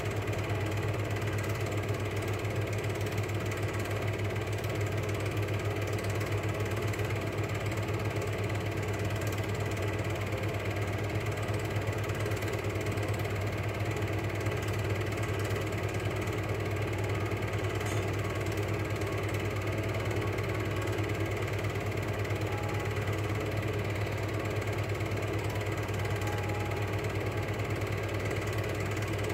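Cine film projector running: a steady motor whir with the fast, even clatter of the film transport mechanism.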